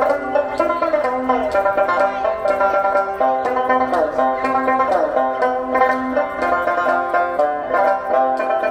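Northern Shaanxi folk music played with plucked string instruments: quick picked notes over a held low note, with a few sliding notes about four seconds in.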